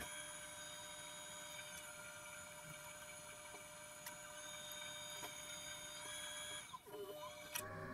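Electric potter's wheel running with its motor giving a faint steady whine made of several high tones, with a few light ticks; the sound briefly dips and wavers near the end.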